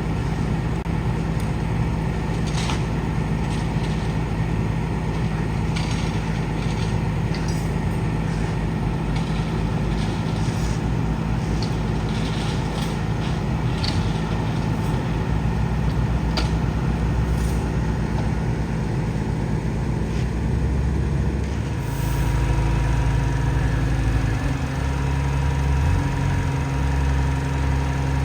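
A heavy vehicle engine running steadily, with scattered short knocks and clicks over it. The engine note shifts about two-thirds of the way through.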